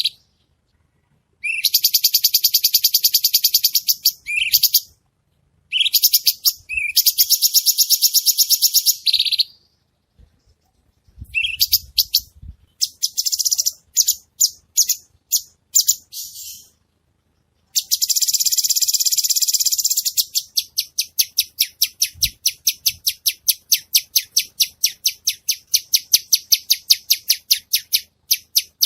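Cucak cungko, a small leafbird, singing in very high, rapid-fire trills that come in bursts of a few seconds with short pauses between. Near the two-thirds mark a sustained trill gives way to a long run of sharp repeated notes, about five a second.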